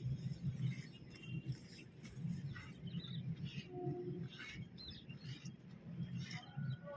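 Hand milking a cow into a steel pail: rhythmic hissing squirts of milk, roughly two a second, over a steady low rumble.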